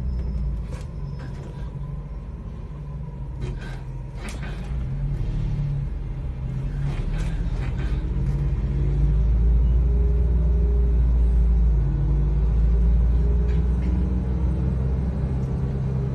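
City bus engine and road rumble heard from inside the passenger cabin: a low, steady drone that gets louder about nine seconds in, with a few short knocks and rattles.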